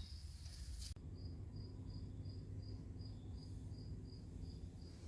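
Cricket chirping faintly in a steady rhythm, about three short high chirps a second, starting about a second in.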